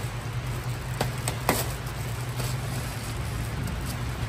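Steady patter of heavy rain over a low steady hum, with a few light clicks near the start and about a second and a second and a half in.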